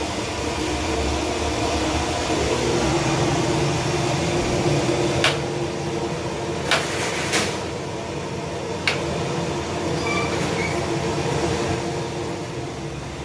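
Steady mechanical hum, with four sharp clicks spread between about five and nine seconds in.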